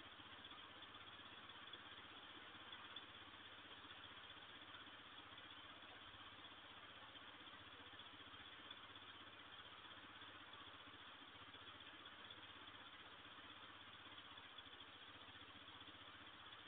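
Near silence: the steady hiss of a security camera's microphone, with a faint low hum underneath.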